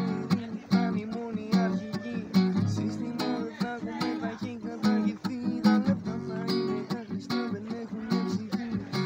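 Nylon-string classical guitar strummed in a steady, rhythmic chord pattern.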